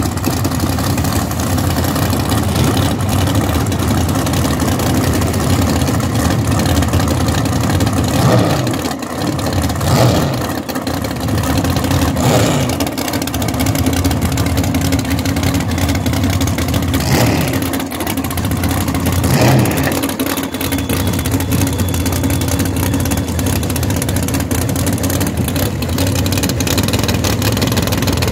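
Top Sportsman drag racing cars' engines idling loudly with a rough idle. They are revved briefly about five times, each rev rising and falling in pitch.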